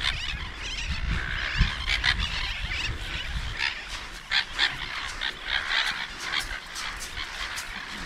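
A seabird colony calling: many short, overlapping squawks and cries, several a second, from birds flying low over the beach and water.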